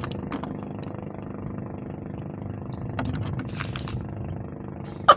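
Small engine running steadily at idle, a constant low hum, with a few light clicks and handling noises over it.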